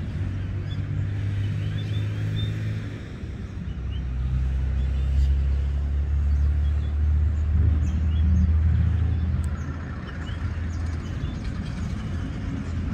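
Low, steady rumble of a car engine on the road beyond the fence, swelling about four seconds in and easing off near the end. A few faint bird chirps sound over it in the first few seconds.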